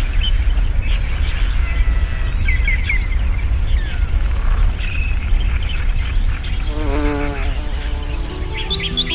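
Insects buzzing and birds chirping over a steady low rumble; background music begins to come in near the end.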